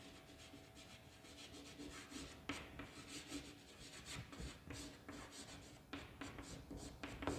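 Chalk writing on a chalkboard: faint, short scratching strokes and taps as letters are written, over a faint steady hum.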